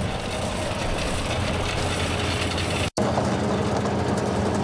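Engine of heavy farm machinery running steadily, with a sudden brief cut in the sound about three seconds in, after which it carries on.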